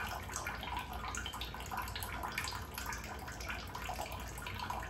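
Water draining out of a BB2000 bidet seat's internal water tank through its drain button, trickling and splashing steadily into the water in the toilet bowl.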